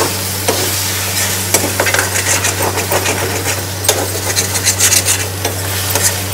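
Metal spatula stirring and scraping boiled potatoes in coriander chutney masala around a steel kadhai, with irregular scrapes and knocks against the pan over a light sizzle of frying in ghee. A steady low hum runs underneath.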